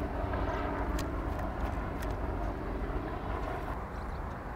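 Steady outdoor rumble with a faint distant engine drone that eases slightly near the end.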